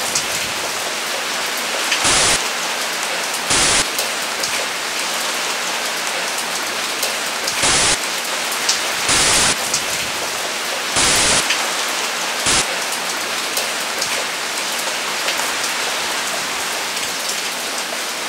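A steady hiss like heavy rain, broken by six short, louder bursts of static-like noise that start and stop abruptly.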